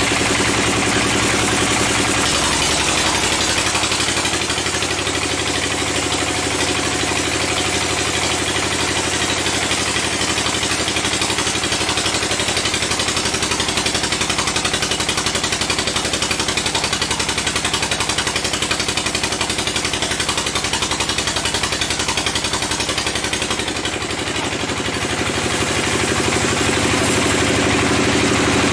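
Band sawmill running as a large mahogany log is fed through the blade, a loud, steady mechanical drone with the noise of the cut. The sound dips briefly near the end, then picks up again.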